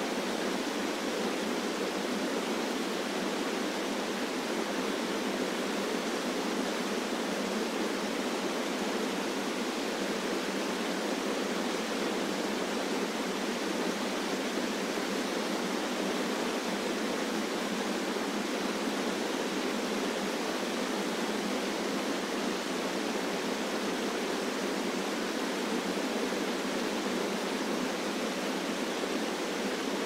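Small river waterfalls cascading over rock ledges into pools: a steady, even rush of falling water with no deep rumble and no separate splashes.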